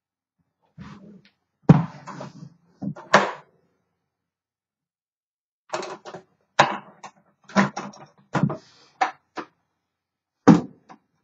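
Typewriter carrying case being handled: about a dozen sharp clicks and knocks from its latches and lid, irregular, with a pause in the middle.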